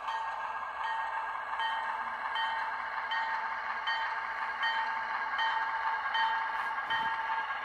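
Bachmann Alco switcher model's sound system ringing the locomotive bell, an even clang about every three-quarters of a second, over a steady running hum as the model moves slowly along the track.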